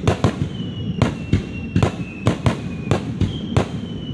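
Aerial fireworks bursting in quick succession, about a dozen sharp bangs at roughly three a second, each trailing off in a short echo. A thin high tone runs underneath the bangs.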